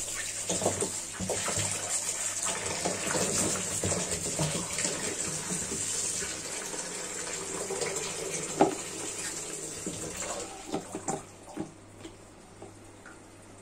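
Tap water running into a stainless steel sink as raw green bananas are rubbed and rinsed under it by hand, with splashing and scattered knocks of the bananas against the sink, one sharp knock about two-thirds of the way through. The running water fades near the end, leaving a few soft knocks.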